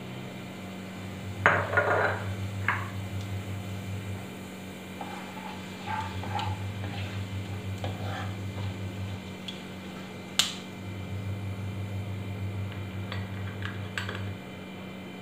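A spatula knocking and scraping against a nonstick kadai while whole spices are stirred in hot oil: a loud clatter about a second and a half in, scattered light taps in the middle, and one sharp click about ten seconds in.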